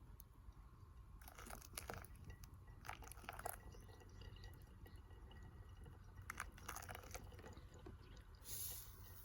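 Faint crackling of a small wood fire: three brief clusters of sharp crackles, and a short hiss near the end.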